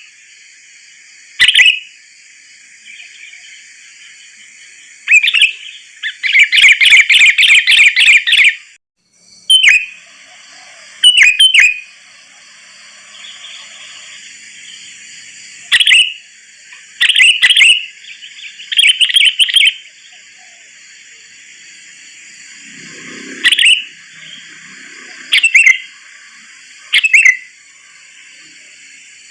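Sooty-headed bulbul (kutilang) singing in short, loud, bubbling phrases every one to four seconds, with a longer rapid run of notes about six seconds in. A steady high hiss runs underneath.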